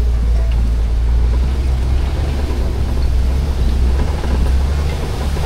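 Safari ride truck driving along: a steady low engine and road rumble.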